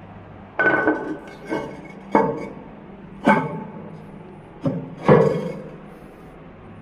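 A series of about six hard knocks and clinks, each ringing briefly before dying away, from hard parts being handled or struck.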